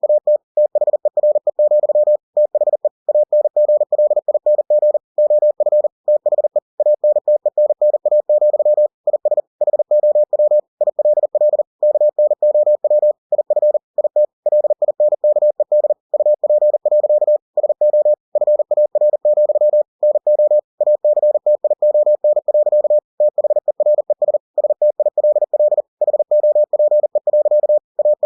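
Computer-generated Morse code (CW) sent at 40 words per minute: a single steady mid-pitched tone keyed on and off in rapid dots and dashes, with brief pauses between words.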